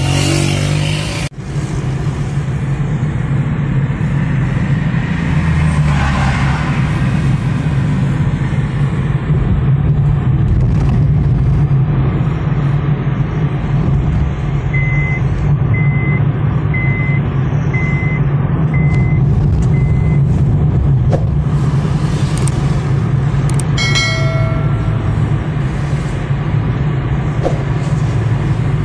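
Car cabin noise while driving: a steady low engine and road hum heard from inside the car. About halfway through, six short high beeps sound about a second apart, and a few seconds later a brief pitched tone.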